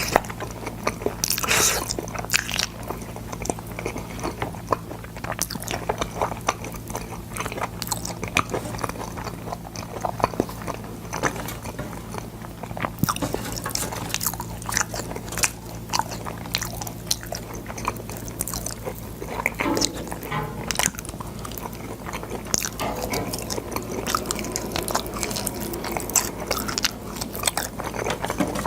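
Close-miked chewing and biting of boiled sword beans: irregular crunches and wet mouth clicks throughout, over a steady low hum.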